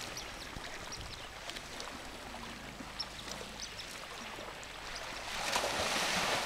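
Water splashing and sloshing as African elephants roll and wade in a pond, with a louder rush of splashing about five seconds in.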